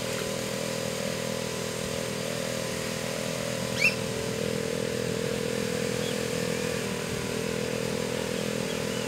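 Small boat motor running steadily at a constant speed, driving a water pump that is pushing water through a hose. A brief high chirp cuts in about four seconds in.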